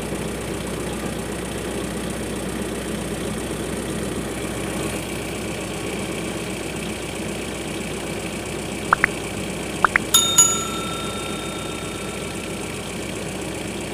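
A steady engine-like drone, then two pairs of quick clicks and a bell ding that rings on for about three seconds: the sound effects of a like-and-subscribe button animation.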